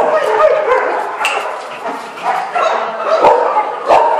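Several dogs barking and yelping over one another, with a short lull about two seconds in.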